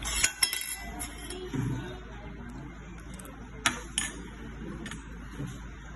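Spoon clinking against a plate in a few sharp taps, two near the start and two more a bit after halfway.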